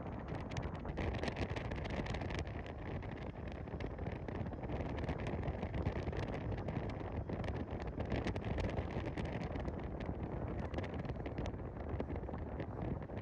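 Wind buffeting the microphone: a steady low rumble broken by frequent crackles.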